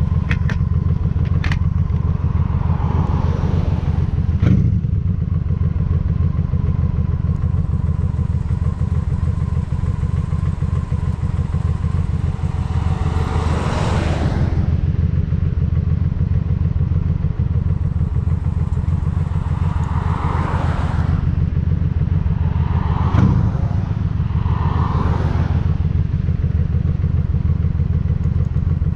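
Honda Shadow cruiser's V-twin engine running steadily on the road, with a heavy low rumble throughout. Several swells of noise rise and fade, and a couple of sharp thumps come about four seconds in and again near the end.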